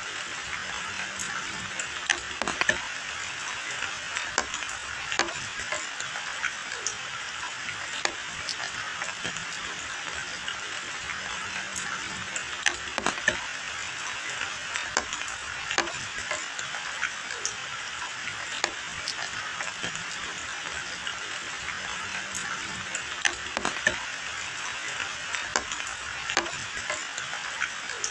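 Steady rain falling on a paved lane and dense foliage: a constant hiss dotted with frequent, irregular sharp drop impacts close by.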